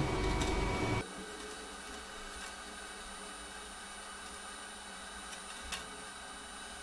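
Faint steady hiss with a few thin high steady tones. It follows a louder low hum that cuts off sharply about a second in, and one short click comes near the end.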